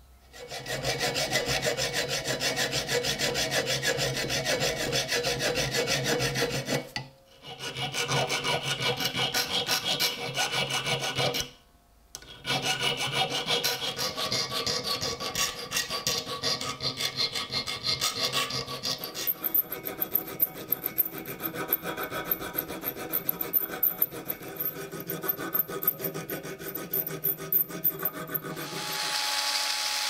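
A metal hand file rasping across small metal pins clamped in a bench vise, in quick repeated strokes. The filing breaks off twice for a moment.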